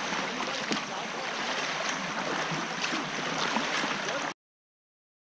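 Water rushing and splashing around a kayak as it is paddled: a steady hiss with small scattered splashes. It cuts off abruptly to silence about four seconds in.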